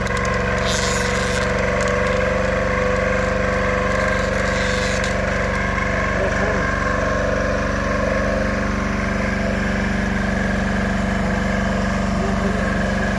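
An engine running steadily at one speed, with two short hisses about a second in and again around four seconds in.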